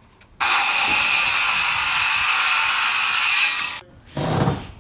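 Handheld circular saw cutting a wooden board, running steadily for about three seconds and then winding down. A brief thump follows near the end.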